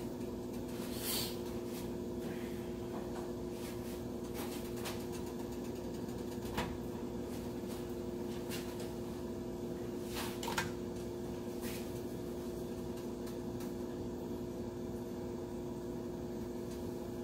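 A steady mechanical hum, with a few light knocks as king crab legs are pushed into a stainless steel pot. The clearest knock comes about a second in, and a few more are spread through the middle.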